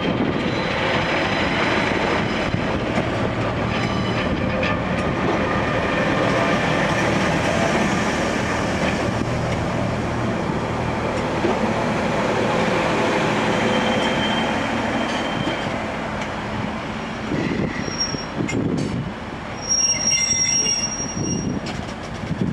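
Class 144 Pacer diesel multiple unit's underfloor diesel engine running steadily right beside the platform, easing off after about 16 seconds. A short high-pitched squeal follows, then a longer one near the end.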